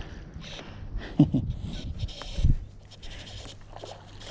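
A man's breathing and two short wordless vocal sounds, about a second in and halfway through, over wind on the microphone.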